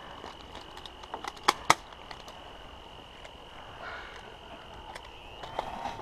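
A few sharp cracks of airsoft handgun fire, the two loudest about a fifth of a second apart, about a second and a half in, over a faint steady high-pitched tone.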